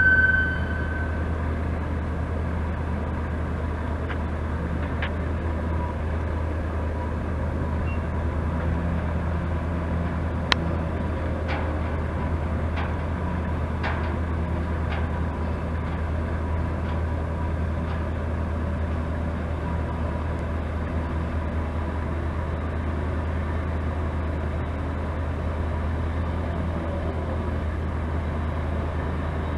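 Gasoline engine of a Bantam truck crane idling steadily with a low, even rumble. A high tone at the very start stops about half a second in, and a few light clicks sound in the middle.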